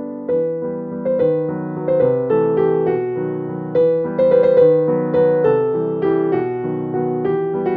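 Background music: a gentle piano melody with notes struck and left to fade.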